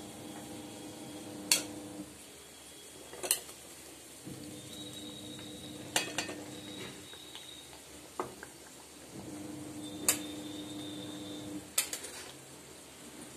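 Steel spatula clinking against a steel pan and plate as paneer cubes are stirred into simmering gravy: sharp metal clinks every second or two over a low sizzle. A steady low hum comes and goes three times.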